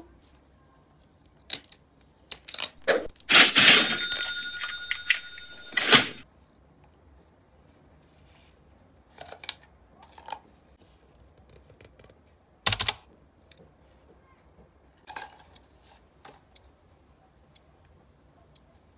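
Hands unwrapping a plastic-and-foil toy package: a few seconds of crinkling and tearing of the wrapper about three seconds in, then scattered light clicks and taps of plastic parts, with one sharp click about halfway through.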